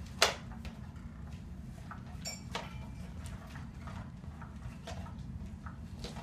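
A sharp knock about a quarter second in, then a few softer taps and rustles, as a cat paws at a battery-powered cat toy's fabric cover on a wooden floor, over a steady low hum.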